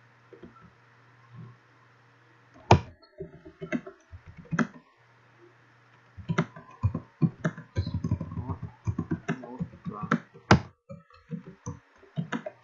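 Computer keyboard being typed on: a few separate keystrokes, then a fast run of keys from about six seconds in, over a low steady hum.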